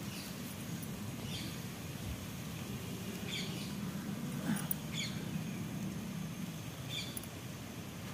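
Birds chirping in short, high calls every second or two, over a low steady hum.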